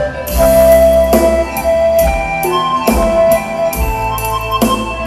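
Music played loud through a Toyota Hilux Vigo's custom-installed car audio system: a Thai luk thung-style dance track with a steady drum beat and keyboard.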